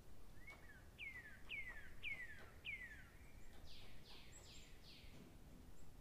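A bird singing: four short notes that each fall in pitch, about two a second, then four higher falling notes.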